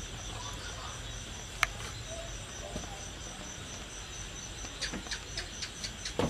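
Steady high insect chirping, evenly pulsed at about four a second, with one sharp click about one and a half seconds in and a run of small clicks near the end.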